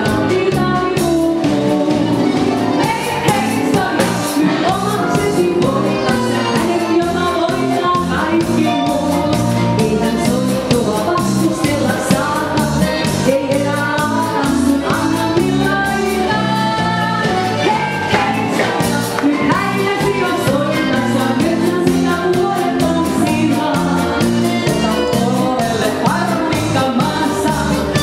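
A woman singing a Finnish humppa song live into a microphone, backed by a band with accordion, over a steady dance beat.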